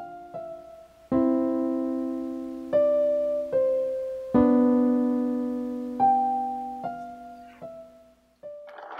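Slow solo piano music: single notes and a few chords struck one at a time, each ringing out and fading. Near the end the piano stops and a rough, noisy sound begins.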